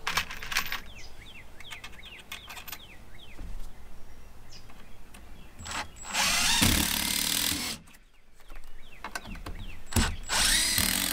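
Power drill driving Camo hidden-fastener screws at an angle into the edge of a composite deck board through the jig: two runs, one of about two seconds some six seconds in and a shorter one near the end, after a few light clicks.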